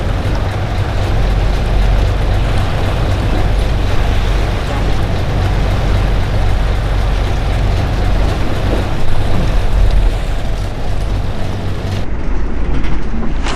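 A boat's engine running steadily under a loud rush of wind and water. Near the end the high hiss drops away suddenly.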